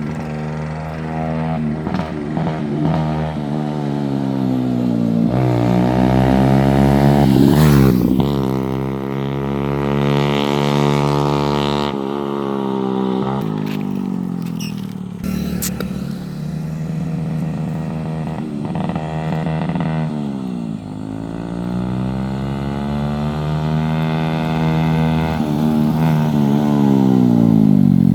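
Motorcycle with an aftermarket Akrapovic exhaust riding along the road, its engine note rising and falling with the throttle. It grows loudest about eight seconds in and again near the end as the bike comes close.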